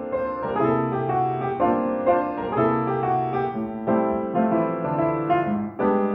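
Piano intro music, with sustained chords changing about once a second.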